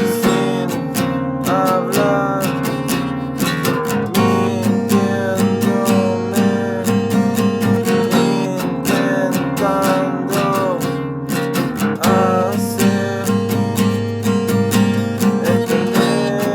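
Music with an acoustic guitar strumming chords in a quick, steady rhythm, a melody moving over it.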